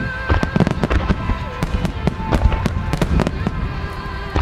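Fireworks starmine of eight-inch aerial shells: sharp bangs of shell bursts in quick succession, several a second, overlapping one another.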